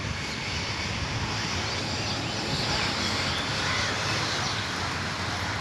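Birds calling: many short, overlapping chirps over a steady background noise.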